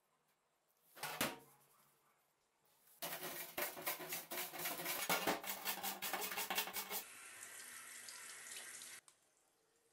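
Rusty steel axe head scrubbed by hand with a scouring pad in a stainless steel sink with cleaning agent: about four seconds of quick, rhythmic scrubbing strokes, then a tap running steadily for about two seconds before it cuts off.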